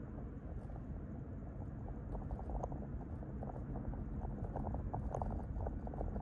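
Car road noise heard from inside the cabin: a steady low tyre-and-engine rumble with irregular small crackles and ticks from the tyres on a rough road surface, growing busier after a couple of seconds.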